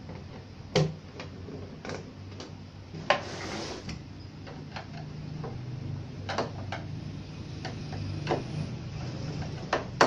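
A screwdriver turning screws out of a CRT television's plastic back cover: irregular clicks and ticks from the driver tip and the turning screws, with sharper knocks about a second in, at about three seconds, and at the very end.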